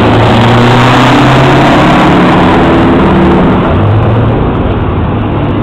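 Heavy truck's diesel engine at full throttle, very loud, accelerating past with its pitch stepping up; it drops away about four seconds in as the truck moves off.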